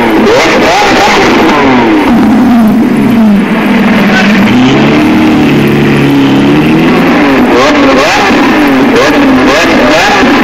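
Engine sound revving repeatedly, its pitch rising and falling in quick sweeps, easing into slower, lower swells in the middle before the quick revving returns.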